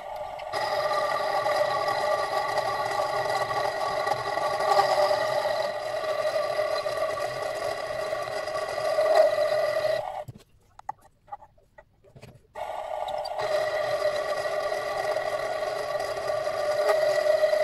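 Mini-lathe running with a steady whine. It stops about ten seconds in, a few light clicks follow, and it starts up again a few seconds later.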